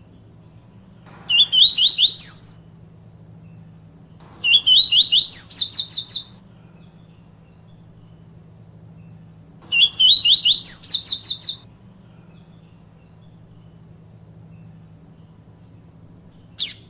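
Yellow-bellied seedeater (papa-capim) singing its 'tui tui viviti' song in three phrases a few seconds apart. Each phrase is a few rising whistled notes followed by a rapid series of high notes. One short high note comes near the end.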